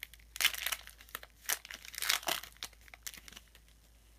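Trading cards being handled and slid through a stack by hand: a few short papery rustles and scrapes in the first three seconds, then quiet.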